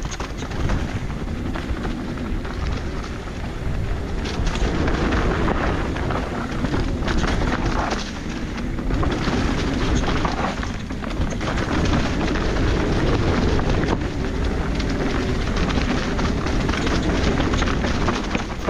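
Mountain bike riding down a dirt trail: wind rumbling on the microphone over tyre noise and the bike rattling and knocking over bumps and rocks.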